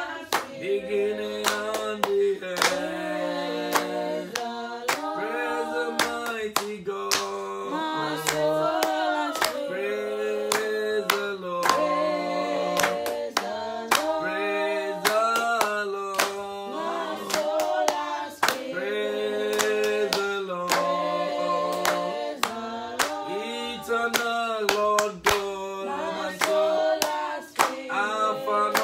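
A man singing a praise chorus and clapping his hands in a steady rhythm.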